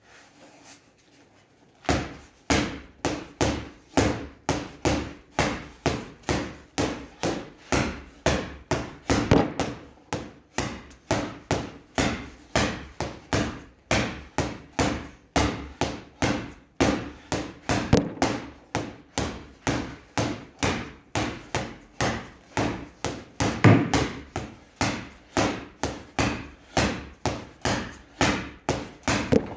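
Boxing gloves punching a water-filled free-standing floor punching bag on a spring stem: a steady run of thuds, about two to three a second, starting about two seconds in.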